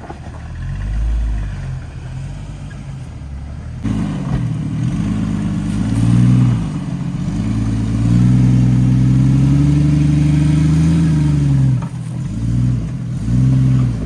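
Off-road 4x4's engine revving under load as it works over a trail obstacle: quieter at first, then louder from about four seconds in, held at high revs for several seconds, followed by a few shorter rev rises and drops near the end.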